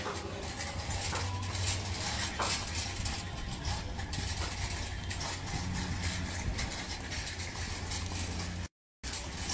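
Metal shopping cart rattling and clattering as it is pushed over a rough concrete street, over a steady low hum. The sound drops out for a moment near the end.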